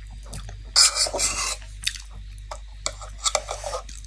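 Sounds of eating by hand at a meal: short noisy rustling and hissing bursts and light clicks from food being handled and eaten, the longest about a second in.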